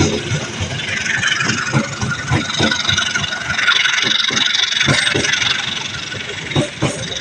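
Vehicle noise at a railway level crossing: engines running under a steady rushing noise, with irregular low knocks throughout.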